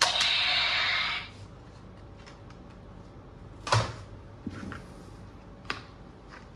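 A rasping, scraping noise lasting about a second, then three separate sharp clicks or knocks, as of hard plastic objects being handled.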